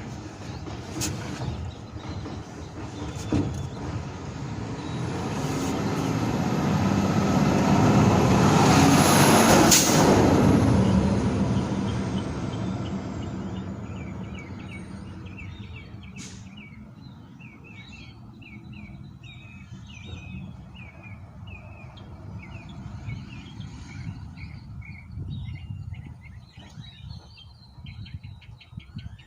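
A passing vehicle: its noise swells to a peak about ten seconds in and then fades away, with a thin high whine at its loudest. Birds chirp repeatedly once it has gone, and a couple of light knocks sound near the start.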